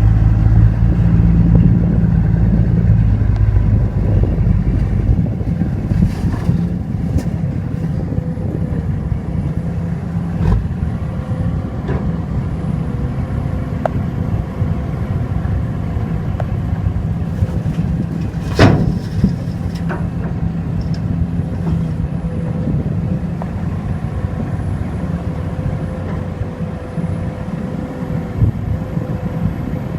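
Heavy diesel engines of a Sumitomo SH210F hydraulic excavator and a ten-wheel dump truck running steadily during loading, loudest in the first few seconds. A single sharp bang comes a little past halfway.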